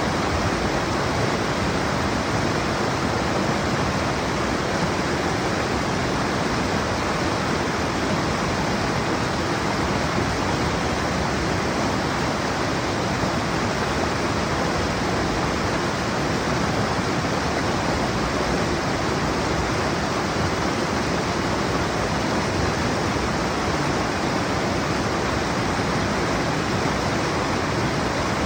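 A stream in flood, its water rushing in a steady, even roar.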